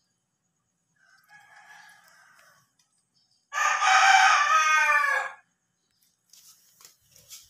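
A rooster crowing: one loud crow lasting about two seconds, starting about three and a half seconds in, with a fainter call before it. A few light knocks near the end.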